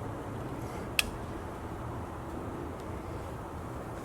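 Reverse-light bulb being worked out of a pickup's tail-light housing: one sharp plastic click about a second in, over a steady low hum.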